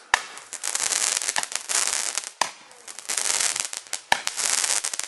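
Garden firework going off in repeated bursts of hissing and crackling, about five spurts each under a second long, with a couple of sharp cracks between them.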